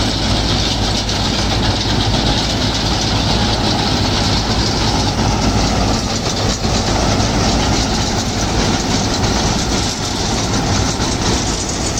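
Panesar Crop Hunter combine harvester running under load, its engine and threshing machinery making a loud, steady drone as it cuts and threshes a heavy paddy crop.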